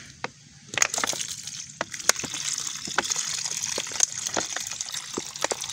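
Fermented homemade banana liquid fertilizer pouring out of an upended plastic bottle into a plastic bucket, starting about a second in: a splashing stream broken by irregular sharp glugs and pops.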